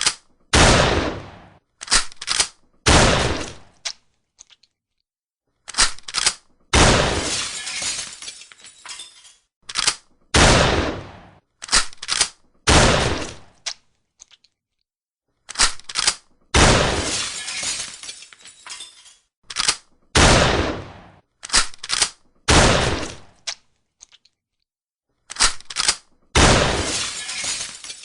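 Repeated shotgun blasts, each with a long decaying tail, coming in clusters broken up by short sharp clacks of the gun being reloaded. There are brief silent pauses between the clusters.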